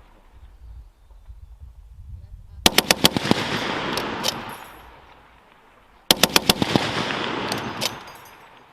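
M2 Browning .50 caliber heavy machine gun firing two short bursts of several rapid shots, one just under three seconds in and another about six seconds in. Each burst is followed by a long echoing rumble.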